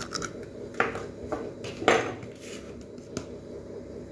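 Light kitchen clicks and knocks, the sharpest two about one and two seconds in, over a steady low hum.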